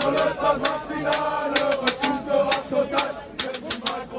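A crowd of demonstrators chanting together, over a run of sharp percussive hits at about three to four a second.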